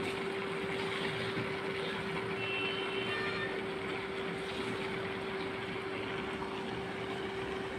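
Bee larvae cooking in an aluminium pot, a steady hiss of steam and bubbling as the water cooks off, over a constant low hum.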